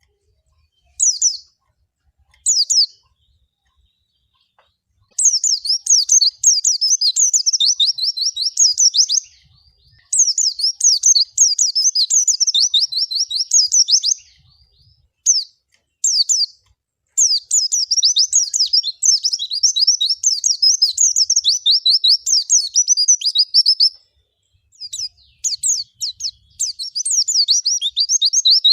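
Pleci, a white-eye (Zosterops), singing: two short high chirps in the first three seconds, then long runs of rapid, high twittering notes with brief breaks between them.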